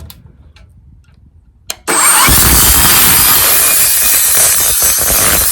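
A Scans 20-volt cordless brushless mini circular saw starts with a click about two seconds in, then runs loud and steady as it cuts.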